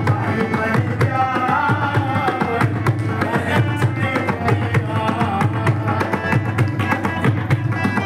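Harmonium playing a melody over a hand drum keeping a steady beat, an instrumental passage of a Punjabi devotional bhajan.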